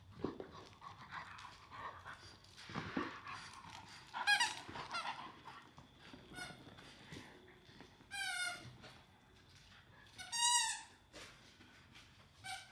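Squeaker in a plush dog toy squeaking as two Staffordshire bull terriers bite and tug it, about six short squeaks, the loudest about four seconds in and near ten seconds. Soft scuffling of paws and bodies on the rug comes between the squeaks.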